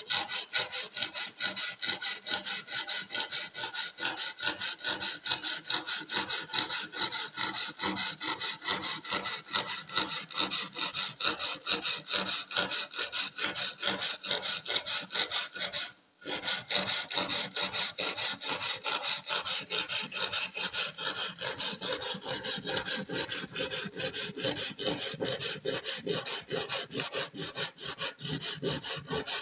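Hand saw cutting through a laminated wood sheet in quick, steady back-and-forth strokes, with one brief pause about halfway through.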